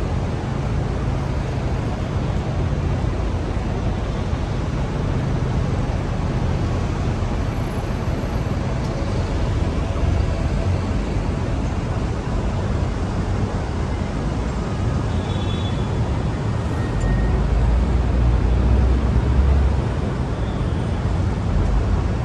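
City street traffic: vehicles running past in a steady roar of engines and tyres. A heavier, lower engine rumble swells for a couple of seconds near the end as a larger vehicle passes.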